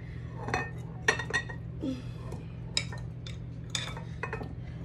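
Metal utensil clinking against a glass mixing bowl and a glass dish as marinated cucumber slices are scooped across, a series of scattered short clinks over a steady low hum.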